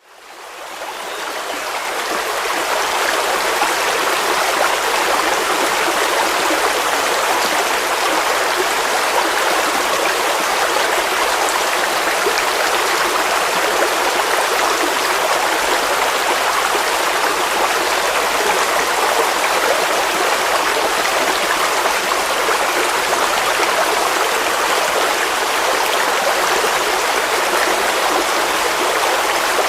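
Waterfall: a steady rush of falling water that fades in over the first couple of seconds, then holds level.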